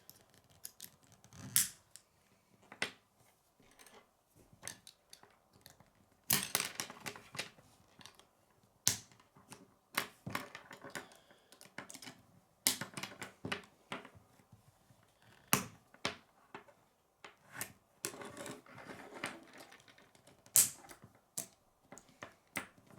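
Plastic K'nex pieces clicking and snapping together as they are handled and assembled: irregular sharp clicks, with a few short bursts of rattling.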